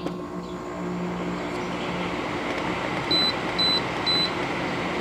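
General Electric ADEL50LRL2 dehumidifier's fan running steadily with a low hum, just switched on. About three seconds in, three short high beeps come from its control panel.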